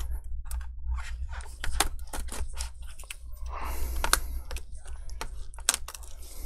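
Plastic laptop screen bezel being pried away from strongly stuck double-sided adhesive tape with a metal prying tool: irregular clicks, crackles and scratches as the tape lets go. A low steady hum runs underneath.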